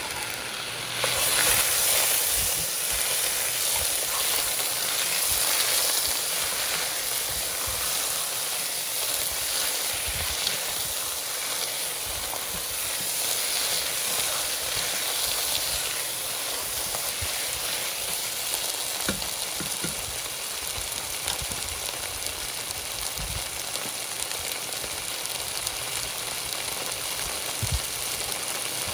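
Tomato paste and tomato sauce sizzling in a hot soup pot as they are stirred in: a steady hiss that rises sharply about a second in, with occasional soft knocks.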